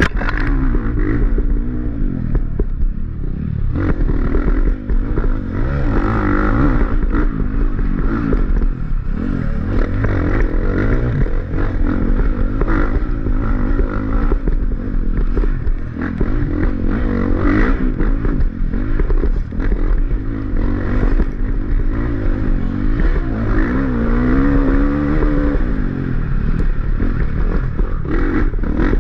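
Off-road dirt bike engine being ridden hard, its pitch rising and falling constantly as the throttle is opened and closed. The bike clatters and scrapes over the rough trail.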